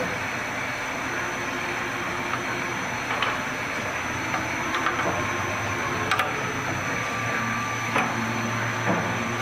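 A handful of light metallic clicks and knocks, spread over several seconds, as a Royal Products quick-change tool holder is fitted into a CNC milling machine's spindle collar by hand. They sit over a steady hum and hiss.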